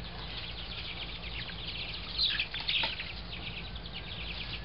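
A flock of young dark Cornish meat chicks peeping: many short, high chirps overlapping without a break, with a louder flurry about two seconds in.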